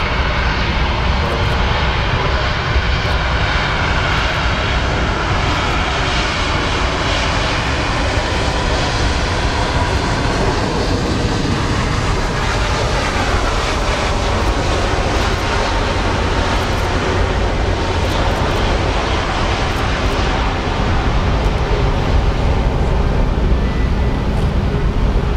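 Airbus A350-1000's Rolls-Royce Trent XWB engines running as the airliner rolls along the runway: a loud, steady jet roar and rumble, with a faint engine whine falling in pitch during the first half.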